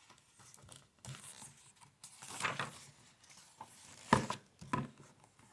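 Soft paper rustling and handling noises, with a sharp click about four seconds in: a book being opened and its pages turned.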